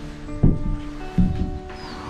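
Background music of plucked string notes, with two new notes struck about half a second and a second and a quarter in and left ringing.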